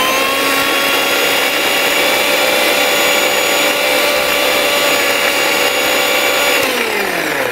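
Electric mixer grinder running with its small steel jar, grinding coconut, green chilli and whole spices into a thin paste: a steady motor whine. Near the end it is switched off and the pitch falls as the motor winds down.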